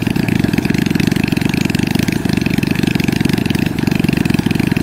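Diesel engine of a rice combine harvester running steadily at constant speed, with a fast, even beat.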